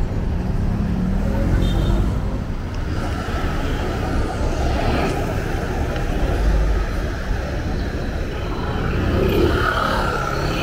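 Street traffic: a steady rumble of motor vehicles running and passing, with voices of passers-by.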